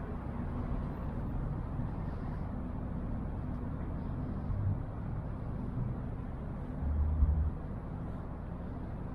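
Outdoor city street ambience: a steady low rumble of traffic, with a brief louder low swell about seven seconds in.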